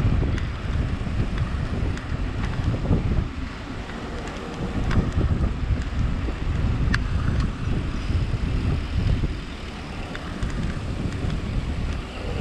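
Gusty wind buffeting the microphone: a low rumble that swells and eases every second or two, with a few faint clicks.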